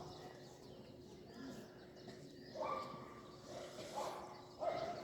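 Faint outdoor background with three short animal calls, about two and a half, four and four and a half seconds in, and faint bird chirps.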